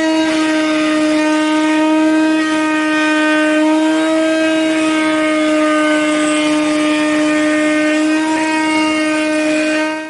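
Router in a router table, its motor running at a steady high speed with a constant pitch. It is switched off right at the end and dies away.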